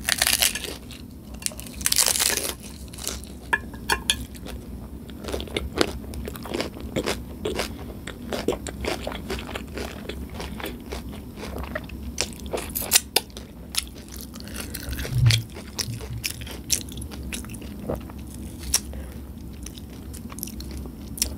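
Close-miked crunching bites into a hard Nacho Doritos taco shell, followed by steady chewing of the crisp shell. The two loudest crunches come at the start and about two seconds in, then smaller crunches run on throughout.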